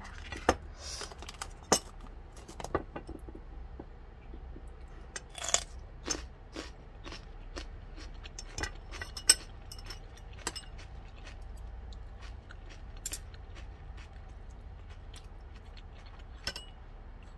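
Close-up crunching and chewing of a raw cucumber chili pepper, with sharp clicks and clinks of a metal spoon and chopsticks against a ceramic bowl scattered throughout.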